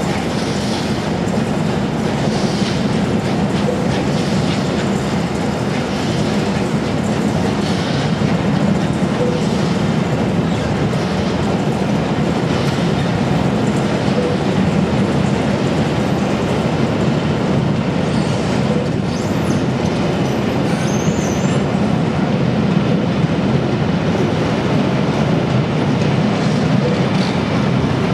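Passenger coaches rolling past: a steady rumble of steel wheels on rail with rhythmic clicks as the bogies cross rail joints. A brief high wheel squeal comes about two-thirds of the way through.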